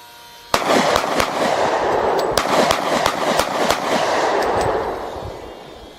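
.45 pistol fired in quick succession, about eight sharp shots in roughly three seconds, over a loud rushing noise that fades out about five seconds in.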